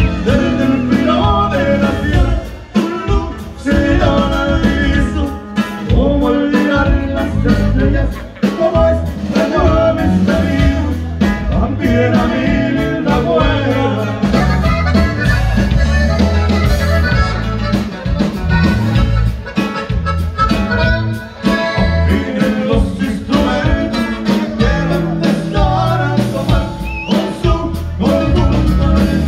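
Live norteño band playing an upbeat number, with accordion and guitar over a steady bass and drum beat.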